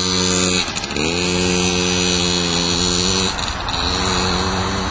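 Small 50cc two-stroke engine of a child's LEM minicross bike, running under throttle with a steady buzz. About a second in, the pitch dips and climbs back up to a steady note. Past the halfway point the note breaks off briefly and comes back a little weaker.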